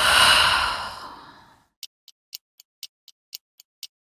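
A person sighing: one long, breathy exhale that fades away over about a second and a half. After it, a run of short ticks at about four a second.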